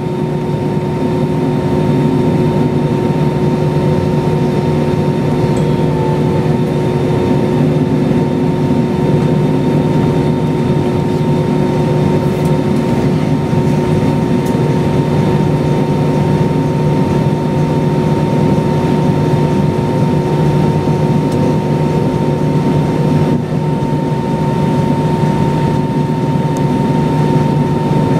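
Steady cabin noise inside an Airbus A320-232 with its IAE V2500 engines running: a low rumble with two steady whine tones over it.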